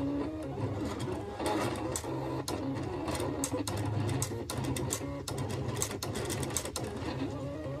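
Silhouette Cameo vinyl cutter cutting heat transfer vinyl: its motors whir, shifting in pitch as the blade carriage and rollers move, with frequent sharp clicks.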